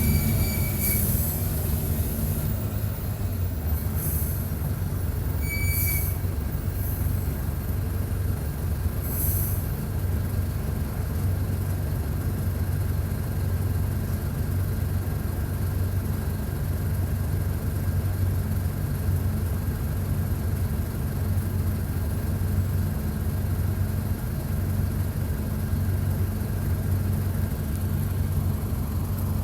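Mercedes-Benz OF-1722 bus diesel engine running steadily under way, a constant low drone heard from inside near the engine. A few brief high squeaks and hisses come in the first ten seconds, then the drone carries on alone.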